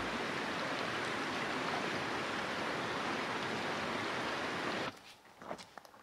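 Steady rush of a shallow, rocky mountain creek. About five seconds in it cuts off abruptly, followed by a few footsteps on a dirt trail.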